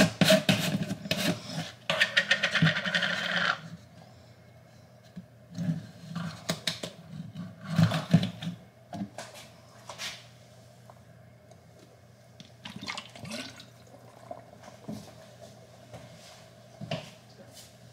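Kitchen handling sounds: a dense scraping, rattling noise for about three and a half seconds, then scattered light knocks and clicks.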